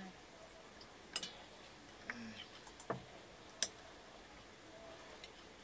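Serving spoons clinking against stainless steel bowls as food is dished out: about five short, sharp clinks spread out, the loudest about three and a half seconds in.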